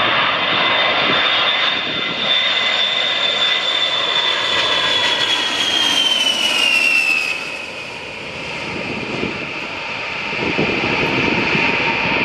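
Boeing E-3 Sentry AWACS jet flying past low, its engines a loud steady rush with a high whine that drops in pitch about six to seven seconds in as it goes by, then briefly fades before the noise swells again.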